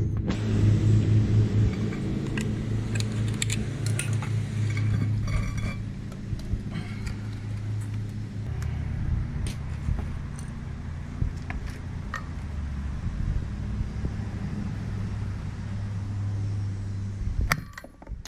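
Light metallic clinks and taps from handling universal-joint parts and tools, over a steady low hum that stops abruptly near the end.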